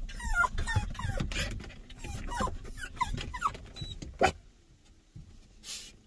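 A dog whining: a run of short, high-pitched whimpers, one after another, for about four seconds, then dying away. A sharp click about four seconds in.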